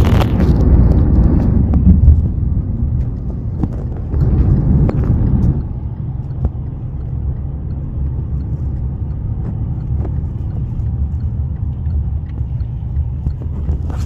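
Low, steady road rumble heard inside a moving car. It is louder for the first few seconds, then eases and stays even.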